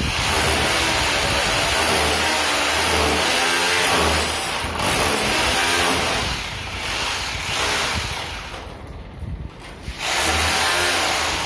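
Corded rotary hammer drill hammering into a plastered brick wall, its motor pitch wavering under load. It eases off after about six seconds, stops briefly, and starts again abruptly about ten seconds in.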